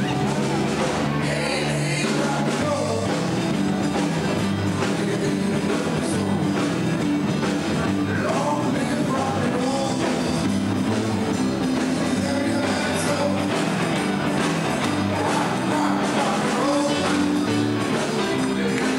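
Rock-and-roll music with a singing voice over a steady, repeating bass line, playing loudly and without a break.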